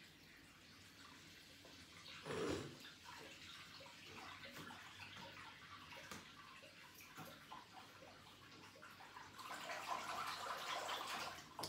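Tap water running into a bathroom sink to fill a bowl of water, with a single thump about two and a half seconds in; the running water gets louder near the end.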